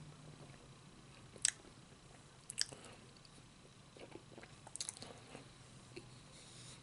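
A person chewing food close to the microphone, with a few sharp, wet mouth clicks and smacks spread through.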